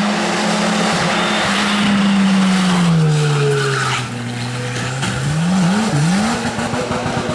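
Race car engine running at high revs, its pitch falling as the throttle comes off, then flaring up and down in quick jerks over a rough skidding noise as the car slides off the road into grass and dirt.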